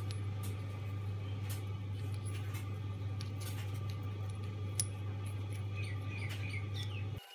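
Light clicks and taps of a square steel letter punch being handled in the milled slot of a brass bar, over a steady low hum.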